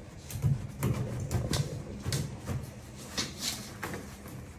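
A dog pawing at a toilet paper roll and pulling paper off it: irregular short scratches, rustles and taps of paper and the roll on its holder.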